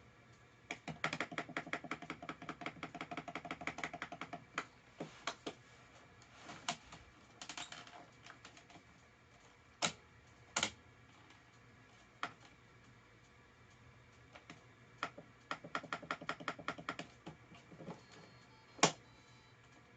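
Typing on a computer keyboard: a quick run of keystrokes near the start and another later on, with scattered single key clicks in between.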